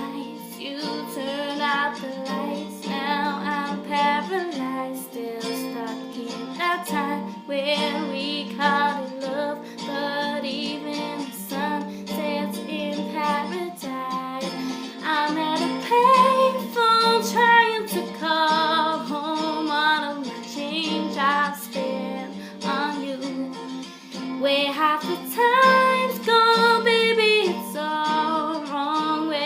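A woman singing a pop song with vibrato over a plucked acoustic guitar accompaniment.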